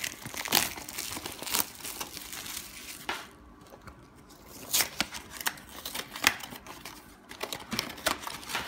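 Hands tearing open a small cardboard blind box and crinkling the foil wrapper inside: sharp, irregular crackles and tearing, with a brief lull about midway.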